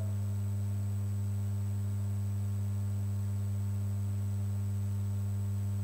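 Steady low electrical hum with a few fainter higher overtones, unchanging throughout: mains hum in the recording chain.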